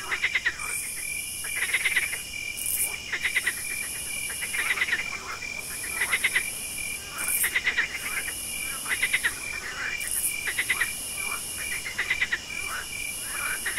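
Frogs calling in a night chorus: short rapid trills repeated about every second and a half, some overlapping. Crickets chirp steadily underneath, with a high insect buzz that stops and starts.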